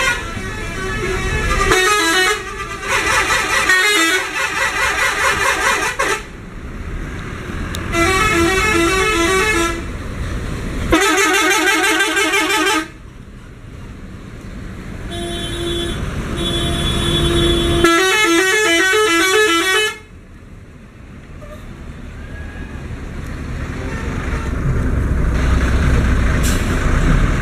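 Telolet musical horns on Marisa Holiday tour buses, playing quick repeating multi-note melodies in several bursts of a few seconds each, one of them fainter. In the last few seconds a passing bus's engine and tyres grow steadily louder.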